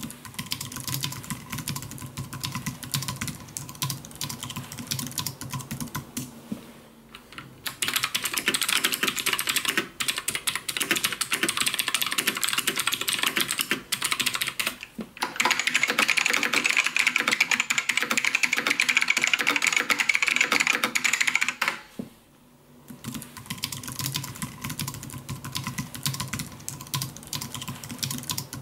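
Typing on computer keyboards, a mechanical pair and a scissor-switch one, played one after another in separate clips with short breaks between. Softer typing opens and closes the stretch; in the middle come two louder stretches of key clatter, the second the loudest and brightest.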